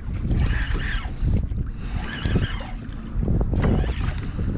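Wind buffeting the action-camera microphone in uneven gusts, with water slapping against the plastic kayak hull in choppy water.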